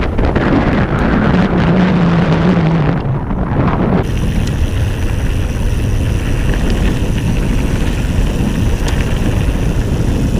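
Wind buffeting the microphone and the tyres of a Ghost Riot mountain bike rolling fast over dirt and gravel trail, with a short hum in the first few seconds. The sound changes abruptly about four seconds in, then runs on as a steadier rush of wind and tyre noise.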